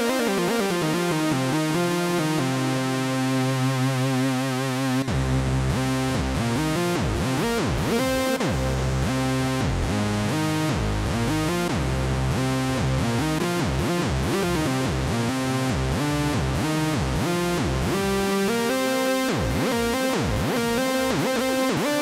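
Roland Juno-X synthesizer playing a preset: a held chord with a wavering, vibrato-like pitch, then from about five seconds in a rhythmic pattern of short plucked notes over a moving bass line.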